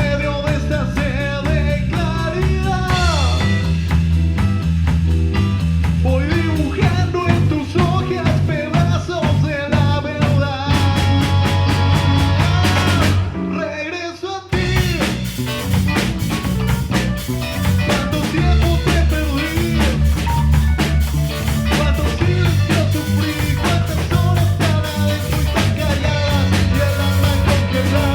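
A rock band playing a song live, with a drum kit keeping a steady beat. Near the middle the band stops for about a second, then comes back in together.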